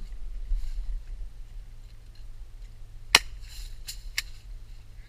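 Airsoft gun shots: three sharp snapping cracks a little past three seconds in, the first the loudest, over a low steady rumble.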